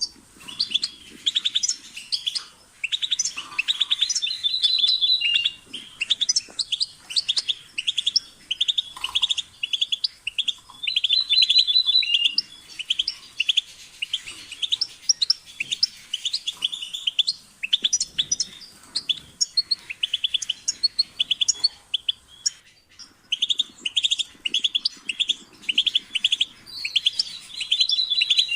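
European goldfinch singing: long runs of fast twittering chirps and trills in phrases with short pauses, including a few stretches of quick repeated notes held at one pitch.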